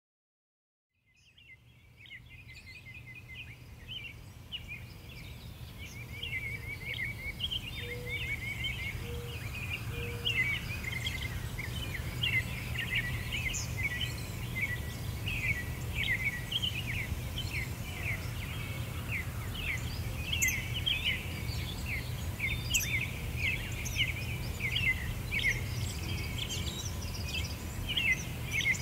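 Many small birds chirping and singing over a steady low rumble, fading in over the first several seconds.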